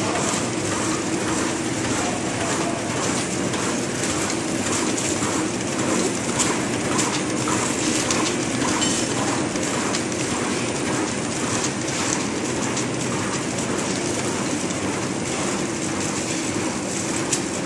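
Plastic bag side sealing machine running, a steady mechanical clatter with a regular rhythm of repeating strokes.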